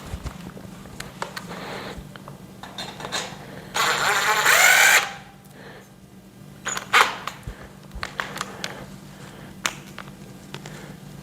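A power drill/driver runs for about a second, its pitch shifting upward as it drives a screw into the shelf's metal frame, amid scattered clicks and taps of screws and metal parts being handled.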